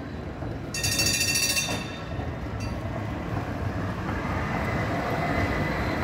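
Articulated tram (car 602) passing close by on its rails, with a steady low rumble of wheels on track. About a second in, a bright high ringing sounds for about a second, and a thin high squeal grows under the rumble in the second half.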